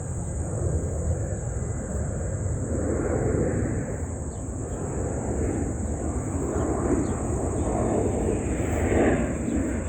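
Low rumble of an airplane passing overhead, building slowly, with a steady high-pitched insect buzz running under it.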